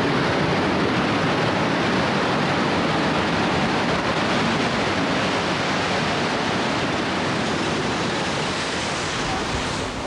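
Loud, steady rushing noise with no separate hits on camcorder audio of a World Trade Center tower collapsing and its dust cloud sweeping down the street. It eases off slightly near the end.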